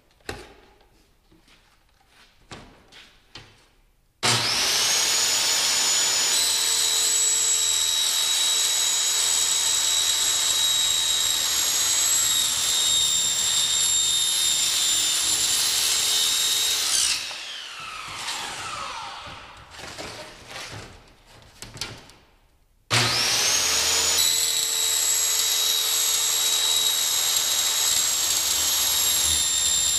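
Circular saw with a Diablo blade cutting an aluminium road sign. About four seconds in it spins up with a rising whine and runs steadily through the cut. Past the middle it winds down with a falling whine, there are a few handling knocks, then it starts again and cuts on.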